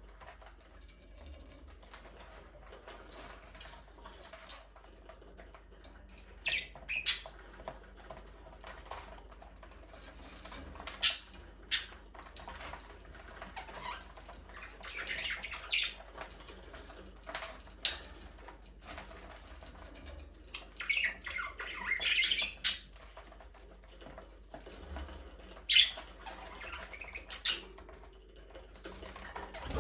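Budgerigars giving short, scattered squawks and chirps, with a few louder stretches of chatter, over a faint steady low hum.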